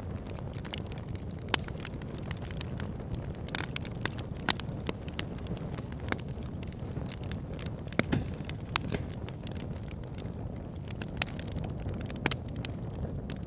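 Wood logs burning in a fireplace: a steady low rumble of flames under frequent crackling, with a few sharper pops about one and a half, four and a half, eight and twelve seconds in.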